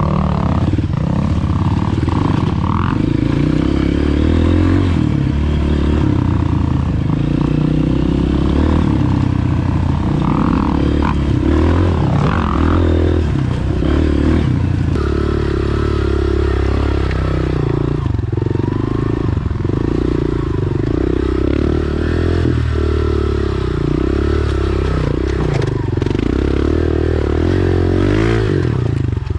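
Single-cylinder four-stroke dirt bike engine, a Honda CRF250RX, running under load while being ridden. Its note rises and falls over and over as the throttle is opened and closed.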